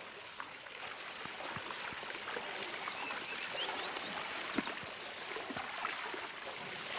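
Steady splashing and trickling of swimming-pool water from a pool fountain and a swimmer, with a few faint high chirps now and then.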